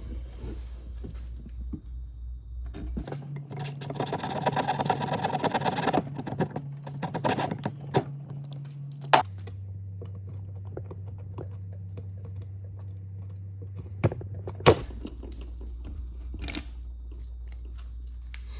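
The retaining ring of an old push-button drawer latch being cut through: a rapid rasping cut lasting about two seconds, followed by a few sharp clicks and knocks as the latch is worked loose.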